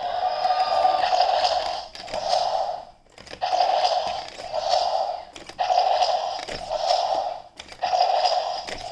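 Jurassic World T-Rex toy's small built-in speaker playing a repeated sound effect: bursts about a second long, mostly in pairs, with short gaps between them.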